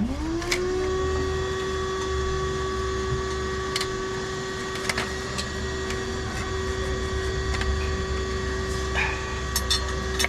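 Small electric motor spinning up in a quick rising whine, then running at one steady pitch, with a few light metallic clicks.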